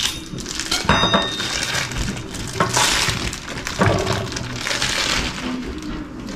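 Kitchenware being handled: a sharp clink with a brief ring about a second in, then several rustling, scraping clatters.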